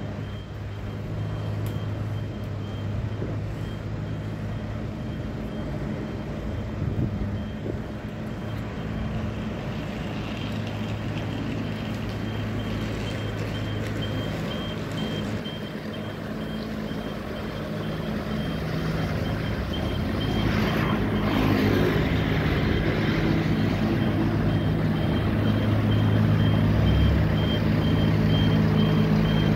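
Boom lift's warning alarm beeping steadily, about two high beeps a second, over the low hum of an engine. Beeps and hum grow louder toward the end.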